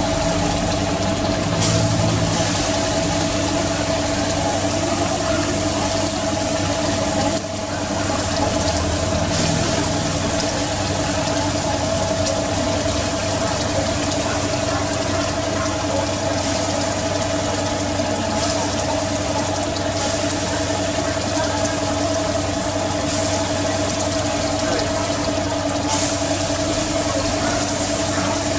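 Steady mechanical drone of a motor running, with a constant hum and hiss and no change in speed.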